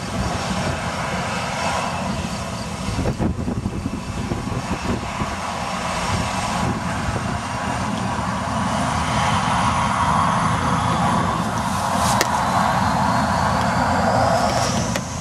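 Boeing 737-800's CFM56 turbofan engines spooling up for takeoff, heard from behind: a steady jet rush grows louder while a high whine rises in pitch over the second half.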